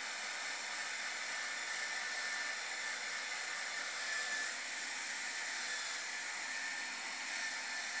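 Hand-held hair dryer running steadily with an even rushing hiss, its air stream blown into a pair of motorcycle boots to dry them out.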